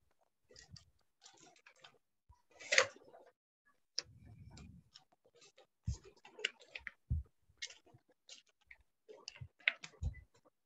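Faint, irregular clicks and taps scattered throughout, with a few dull knocks and a brief low rumble about four seconds in.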